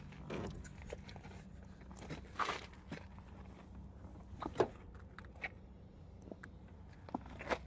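Scattered soft footsteps and small clicks, over a faint steady low hum.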